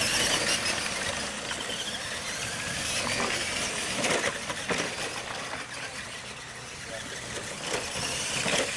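R/C monster trucks racing on dirt, their electric motors and gears whining up and down as they accelerate, with a few knocks as the trucks hit and land off wooden ramps, two close together about four seconds in.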